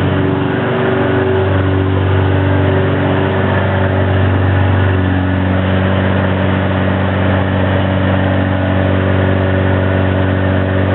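Toyota 22R four-cylinder engine, fuelled by wood gas from a gasifier, running steadily.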